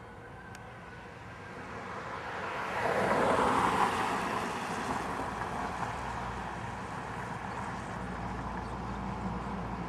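A car driving past on the street, its noise swelling about three seconds in and then fading, followed by a low steady engine hum as another car approaches.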